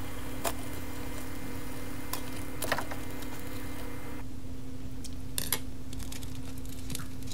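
Dumplings deep-frying in hot oil: a soft, steady sizzle with a few light clicks of wooden chopsticks, over a low steady hum. The sizzle drops away about four seconds in, leaving the hum.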